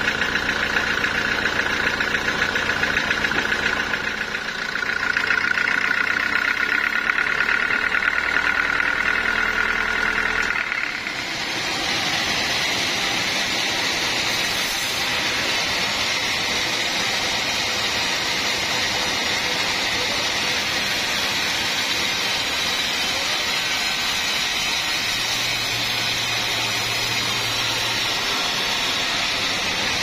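Band sawmill running and sawing through a large teak log: a steady machine drone whose sound changes abruptly about a third of the way in to a steadier, hissier sawing noise that runs on.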